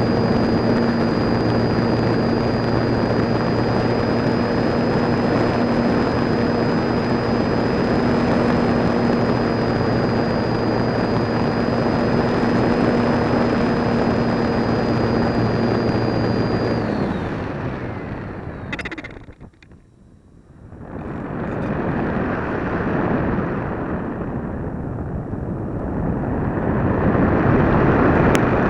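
Onboard sound of an RC electric motor glider in flight: the electric motor and propeller run at a steady pitch under loud wind rush until the motor cuts out about 17 seconds in. After that only wind noise is left, falling almost away for a couple of seconds and then swelling again near the end.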